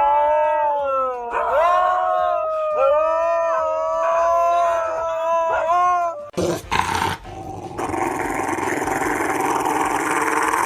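A dog howling: several long, drawn-out howls one after another, each sliding up at the start. About six seconds in the howling stops and a harsh, noisy sound takes over.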